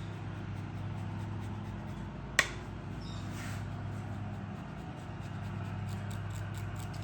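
Steady low hum with a single sharp clink of a kitchen utensil about two and a half seconds in.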